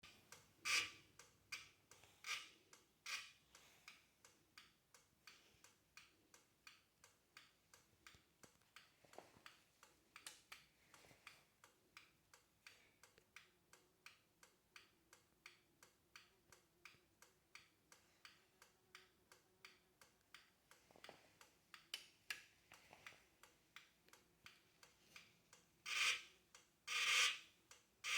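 Faint, regular ticking from a battery, about two to three clicks a second, which the owner finds odd. A few louder rustling noises come near the start and again near the end.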